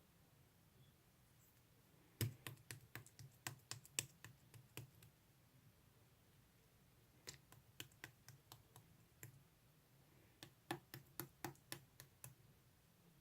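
Three runs of quick, light tapping clicks, about four a second, with quiet gaps between the runs.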